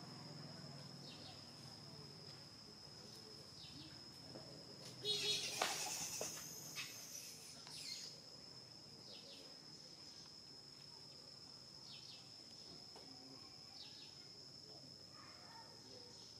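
Steady high-pitched insect drone, with a few short faint chirps scattered through it. A brief, louder burst of high calls comes about five seconds in.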